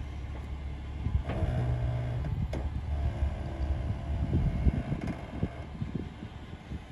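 Hummer H3 SUV engine running low and steady as it crawls down a sandstone ledge at walking pace, with irregular crunching of the tyres over rock and grit through the middle.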